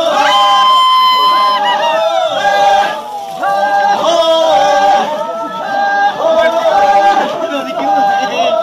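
A crowd of men chanting together in short, repeated sung phrases, with no instruments, as a group effort chant while they push a truck uphill.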